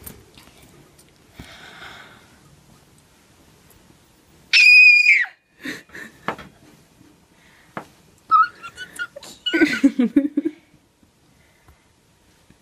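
A girl's wordless emotional cries: one loud, high-pitched squeal lasting under a second about halfway through, then softer wavering cries and breathy sounds near the end.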